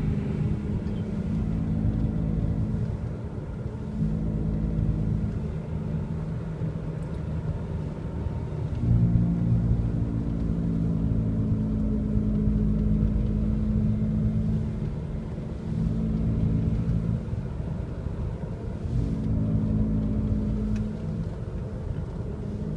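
Worn left rear wheel bearing on a 2002 Honda CR-V, a low droning hum heard from inside the car while driving. The drone swells and fades several times as steering one way puts weight on the bearing and the other way takes it off; the bearing is really bad.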